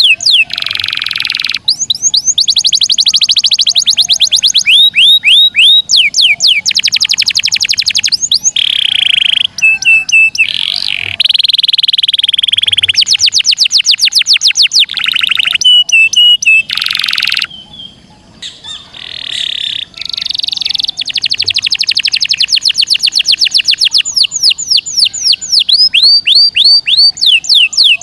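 Domestic canary singing a loud, continuous rolling song: fast trills of rapidly repeated descending notes alternating with buzzy phrases, with a brief drop in volume about 18 seconds in.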